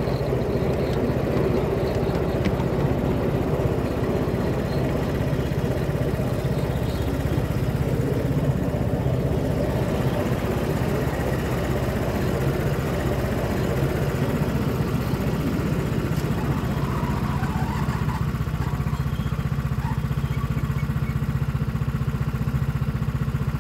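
Miniature railway locomotive's small engine running steadily, with a low even hum. A rougher mid-pitched part of the noise fades away about halfway through, leaving the engine hum on its own.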